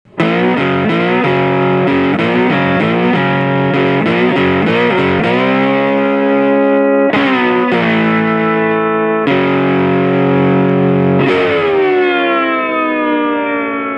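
Intro music with a distorted electric guitar: a quick riff for about five seconds, then a few held, strummed chords, the last one ringing on and fading.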